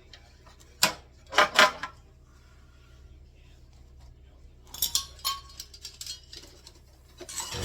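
Metal parts and tools clanking on a workbench during seat fabrication. There is a sharp clank about a second in, two louder ones half a second later, then a quick cluster of lighter clinks around the middle, and a few faint taps near the end.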